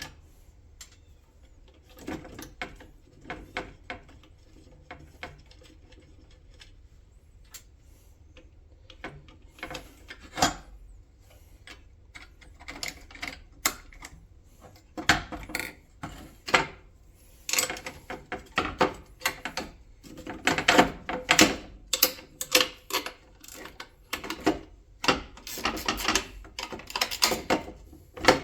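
Hand tools and small metal parts clicking and clanking while a shifter assembly is taken apart, scattered at first and in busy irregular clusters in the second half.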